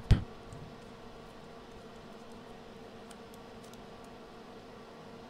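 Quiet background: a faint steady hum with light hiss, and a few faint, very short ticks near the middle.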